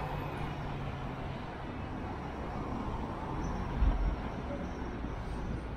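Busy city-street ambience: a steady wash of traffic with low engine rumble. A brief low thump comes a little past the middle.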